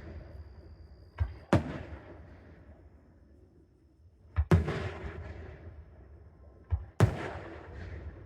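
Aerial fireworks bursting overhead: three loud booms about three seconds apart, each just after a smaller bang and trailing off in a crackling, echoing tail.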